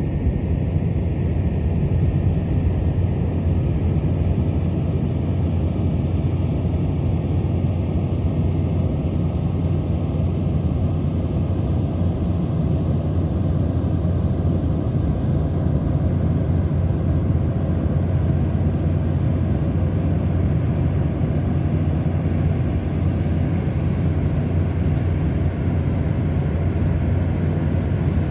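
Steady low engine drone from an onshore drilling rig's heavy machinery running continuously.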